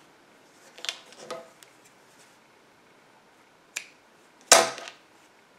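Hands handling crochet work and a tapestry needle: a few soft clicks and taps, the loudest a knock about four and a half seconds in.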